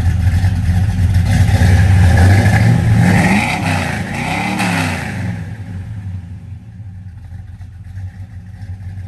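Chevy C10's small-block 350 V8 running through its dual exhaust. It is blipped up twice about three and a half and four and a half seconds in, then settles back to a lower, quieter idle.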